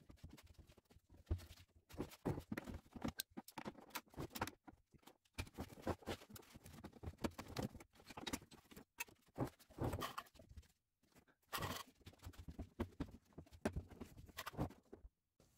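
Irregular small clicks, scrapes and rattles of hand tools working at the screws and clips holding the fuel and brake lines under a car, trying to get them undone.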